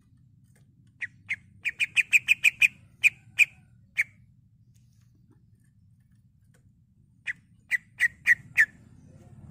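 Male greater green leafbird (cucak ijo) calling in sharp, clipped 'ngetrok' notes. A quick run of about ten notes comes first, then three more spaced out. After a pause of about three seconds, five more notes follow near the end.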